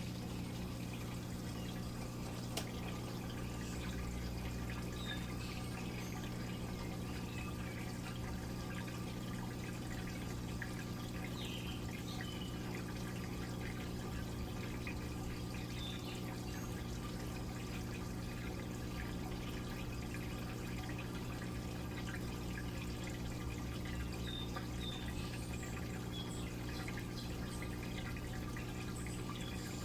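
Midea Wave-Agitator top-load washing machine running mid-cycle: a steady low electric hum with water trickling and dripping inside the tub.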